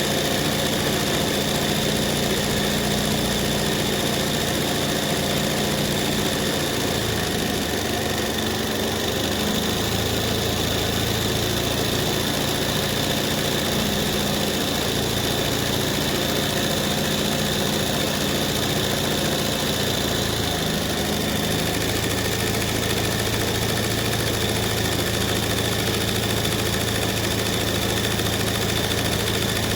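Embroidery machine running steadily, a continuous mechanical hum and whir; its pitch shifts briefly about eight seconds in and again a little after twenty seconds.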